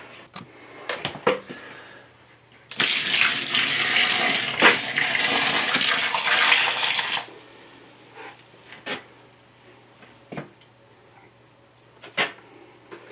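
Water poured into a trench of loose backfill dirt, splashing for about four seconds from around three seconds in, wetting the fill so it will compact. A few short knocks and clicks of handling come before and after.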